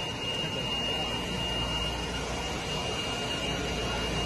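Steady rushing noise of churning water in large aerated tanks, with a thin steady high whine over it.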